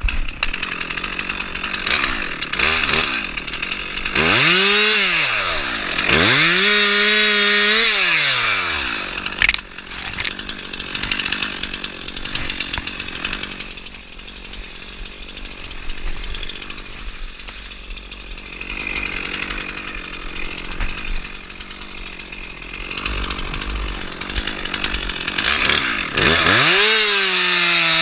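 Two-stroke chainsaw running while cutting tree limbs. It is throttled up to high speed and back down three times, about four seconds in, again around six to nine seconds, and near the end, with steadier running at lower speed in between.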